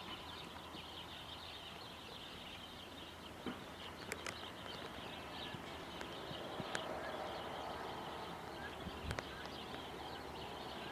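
Rabbits gnawing on a wooden branch: a few scattered sharp crunches and some rustling in the straw, over faint outdoor ambience with birds chirping in the distance.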